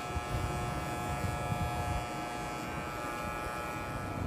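Electric beard trimmer running with a steady buzz.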